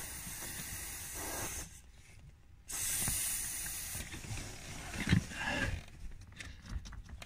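GT85 water-dispersant aerosol spraying into an electrical connector in two hissing bursts: the first stops about a second and a half in, the second starts near three seconds in and lasts just over a second. Faint handling knocks follow.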